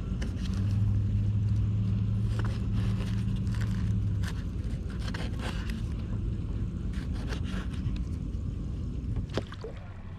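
A boat motor humming steadily at a low pitch, strongest for the first few seconds and then fading, with light knocks and scrapes of gear against the kayak.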